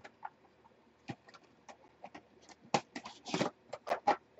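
Trading cards being handled on a tabletop mat: a scatter of light taps, slides and rustles, sparse at first and busier in the second half.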